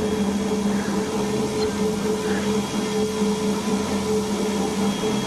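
A steady, unchanging hum over a constant hiss.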